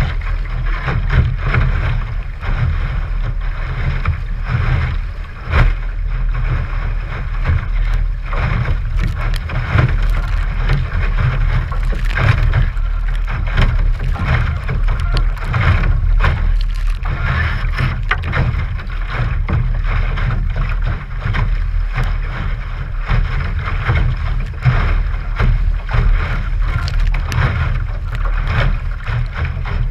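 Wind buffeting the microphone over water rushing and splashing against the hull of a small Sunfish sailboat as it sails through choppy water, with frequent short slaps of spray.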